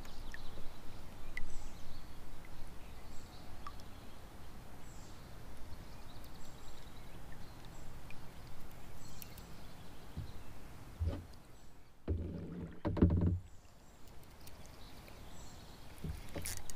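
Spinning reel cranked slowly during a lure retrieve from a plastic kayak: a faint steady sound with light scattered ticks. A few dull low knocks come in the second half.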